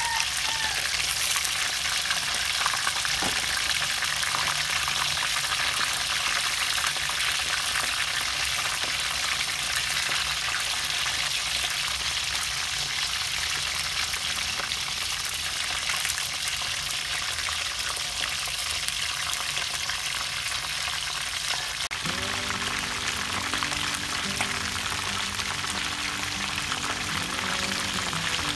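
Frog pieces deep-frying in hot oil, sizzling steadily. Background music comes in about three-quarters of the way through.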